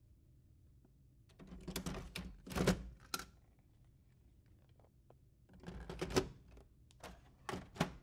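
Hard plastic clicking and clattering as an imaging unit is slid into a Lexmark XM1242 printer and seated, in two bursts of rattling clicks. A few sharp clicks follow near the end as the printer's front door is pushed shut.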